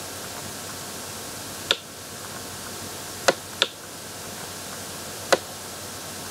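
Four sharp computer mouse clicks, the middle two close together, over a steady background hiss.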